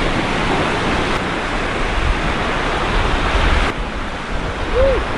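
Gulf surf washing onto the beach, with wind rumbling on the microphone. The hiss thins out abruptly a little past halfway.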